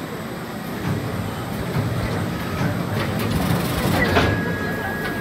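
Dorayaki sandwiching machine running on a production line: a steady mechanical hum of conveyors, with a clack from the mechanism roughly every second and a thin high whine near the end.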